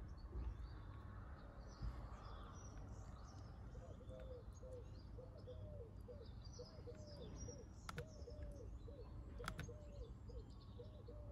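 Faint birdsong: scattered high chirps, and from about four seconds in a bird repeating a short low call about twice a second, over a low steady hum. Two sharp clicks sound near the end.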